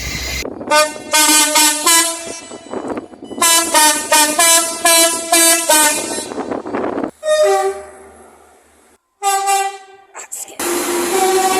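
Train horn sounded in a rapid string of short two-tone toots, about three a second, for several seconds, then a few longer separate horn blasts.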